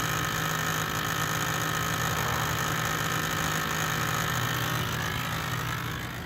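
Steady mechanical hum with a high whine, engine-like, easing off near the end.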